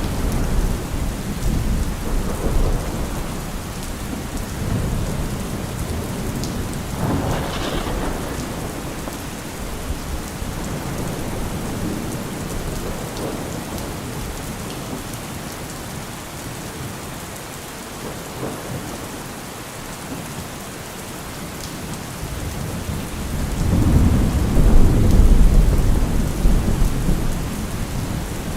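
Steady rain with rolling thunder: a sharper thunder crack about a quarter of the way in, and a loud low rumble of thunder near the end.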